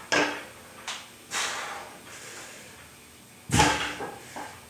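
Iron weight plates on a plumbing-pipe yoke squat bar, loaded to about 225 pounds, clanking down onto the floor as the bar is set down at the bottom of a rep: a loud clank at the start, a smaller knock, and another loud clank about three and a half seconds in. A rushing, hissing exhale falls between the clanks.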